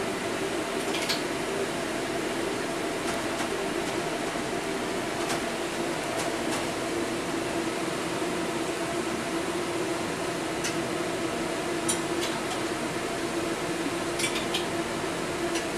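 Steady mechanical hum, like a fan or household appliance running, with a low droning tone over a hiss and a few faint light clicks.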